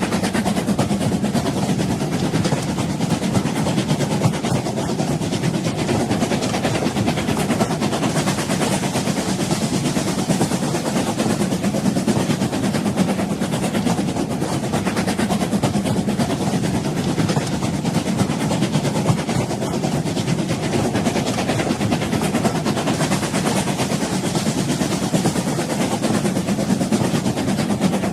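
Old train running on the rails: a steady, unbroken rumble and rattle with no single knock or whistle standing out.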